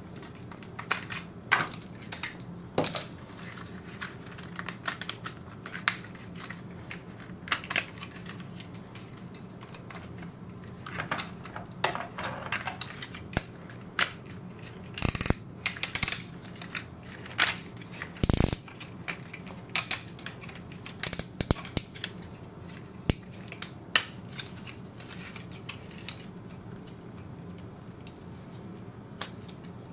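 Toy robot figure being transformed by hand: irregular clicks, snaps and short scrapes of its parts, joints and hinges being moved and pressed into place, with a few louder snaps in the middle.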